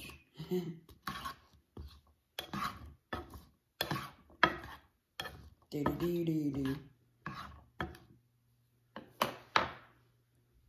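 A spatula scraping and pushing diced green peppers and onions around a frying pan in quick, irregular strokes, about one or two a second, stopping shortly before the end. A brief murmur of a voice comes about six seconds in.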